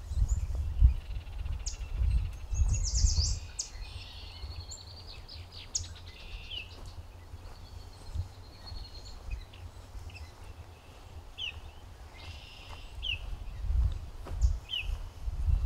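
Songbirds singing and calling all around: a rapid high trill about three seconds in, and short falling chirps repeated several times later on. Under them is a low rumbling on the microphone that swells at the start and again near the end.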